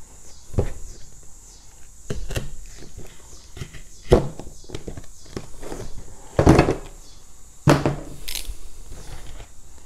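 Irregular knocks and thuds, about five of them, from parts and trim being handled and pushed into place in a car interior. The loudest come about four and six and a half seconds in.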